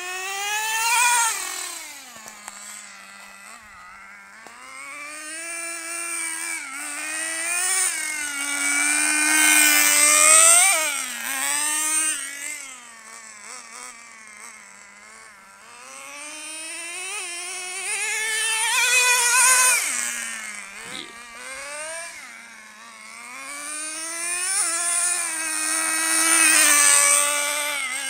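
HPI RS4 radio-controlled car's motor revving up and down as it drives, its whine rising and falling in pitch, and growing louder and fainter as the car comes near and goes away, with four loud peaks.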